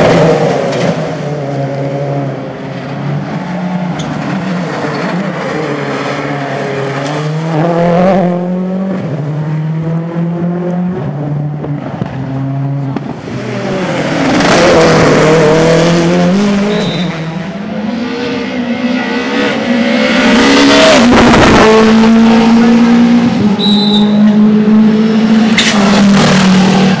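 Rally car engines at high revs as cars pass one after another on a special stage. The pitch climbs and drops through the gear changes, and the loudest passes come at the start and from about two-thirds of the way in.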